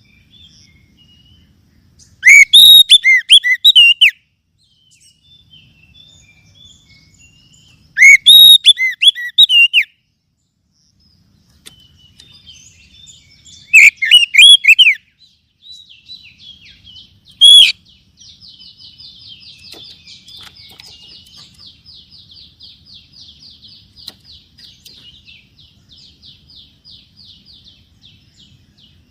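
Oriental magpie-robin (kacer) song: four loud bursts of varied, sweeping whistled phrases, then a long, fainter, fast rattling trill from a little past halfway on.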